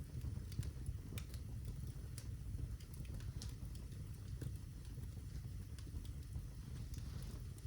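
Birch-log fire in a fireplace crackling: scattered sharp pops and snaps over a low, steady rumble.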